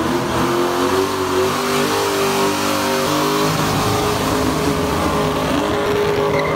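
Ford SN95 Mustang's engine held at high revs through a burnout, its pitch wavering up and down, over the steady rasp of the rear tyres spinning on tarmac.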